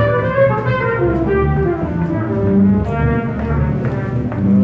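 Live band music from subway buskers: held melody notes carried over a low, steady bass line.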